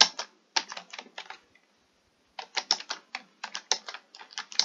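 Typing on a computer keyboard: a run of quick key clicks, a pause of about a second, then a faster, busier run of clicks.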